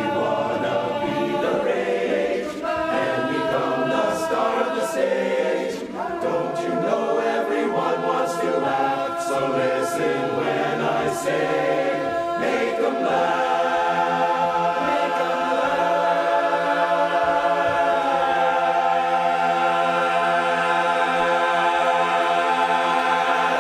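Barbershop chorus singing a cappella in close harmony. The chords move through the first half, then the chorus holds one long final chord for about the last ten seconds.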